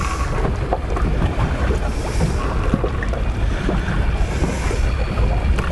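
Wind buffeting the microphone over water moving against a small boat's hull: a steady rumbling haze with a few faint ticks.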